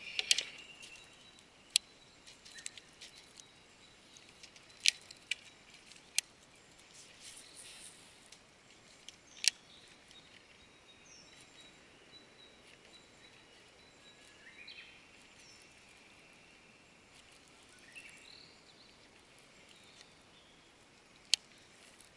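Quiet outdoor ambience with faint bird calls and a handful of sharp, isolated clicks scattered through it.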